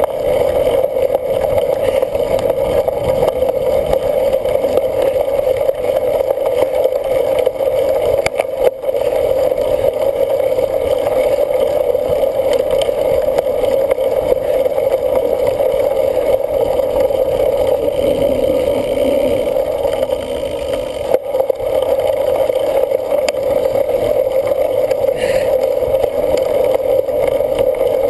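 Steady rushing noise of a cyclocross bike being raced: wind on the camera's microphone and the tyres rolling, with two sharp knocks, once about a third of the way in and again about three quarters through.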